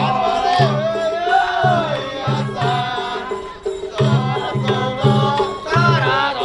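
Japanese festival-float hayashi music: taiko drums beating a steady pattern of about two strokes a second under a high, wavering melody line.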